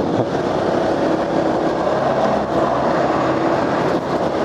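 Motorcycle riding in traffic: a steady engine drone over road and wind noise.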